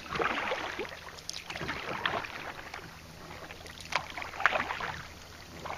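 Kayak paddling: the paddle blades dipping and splashing in the water with drips and water lapping at the hull, in irregular strokes.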